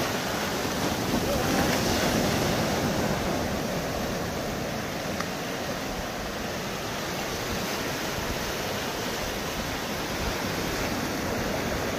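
Sea surf washing over a rocky shore: a steady rush of breaking water, a little louder about two seconds in.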